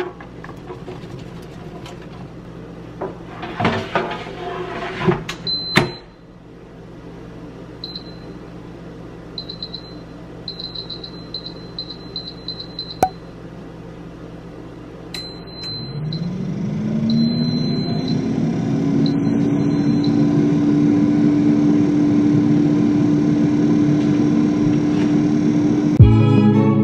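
Red potato pieces clattering into an Instant Pot Vortex air fryer basket, then the fryer's control panel beeping: a quick string of short beeps, then a few longer ones. Its fan then spins up with a rising hum and settles into a steady whir as the fryer preheats.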